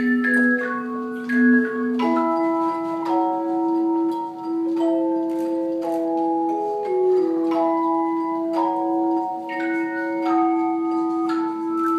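A tone chime ensemble playing: struck chime notes ring on as sustained chords, with a low note held underneath while the higher notes change about once a second.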